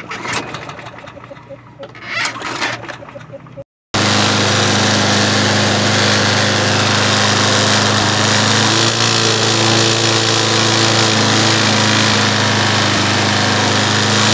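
Briggs & Stratton 725EX single-cylinder mower engine on a Snapper SE walk-behind mower, coming in abruptly about four seconds in and then running loud and steady while its throttle plate is moved with pliers; its note shifts slightly about nine seconds in and again near the end. The mower shakes as it runs, which the owner puts down to an unbalanced blade.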